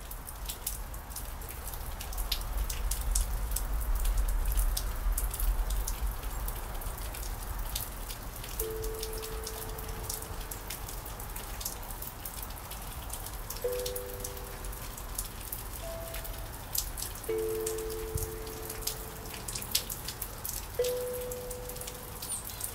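Rain falling, drops pattering steadily, with a low rumble in the first several seconds. From about nine seconds in, a kalimba is plucked five times, mostly two notes at once, each note ringing and fading.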